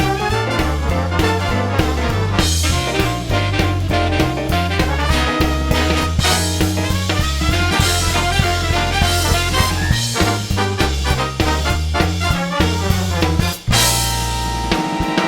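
Upbeat swing-style background music with brass and a walking bass line; it drops out briefly about 13.5 seconds in and ends on a held chord.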